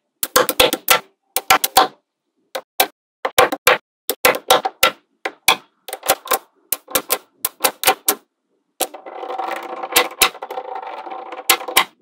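Small magnetic metal balls clicking sharply as blocks of them are snapped onto a wall of balls, in irregular clusters of quick clicks. About three-quarters of the way in, a continuous rattle of the balls shifting against each other sets in, with more clicks over it.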